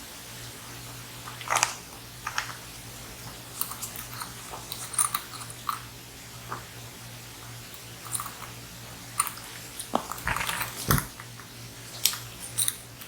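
Hands handling small plastic items: irregular clicks, crackles and rustles, with a louder knock and crackle about ten seconds in, over a faint steady hum.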